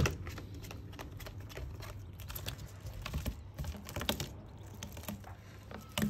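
Herring gull's beak tapping and pecking against a glass skylight as it picks at and tears a sardine: a run of irregular sharp clicks.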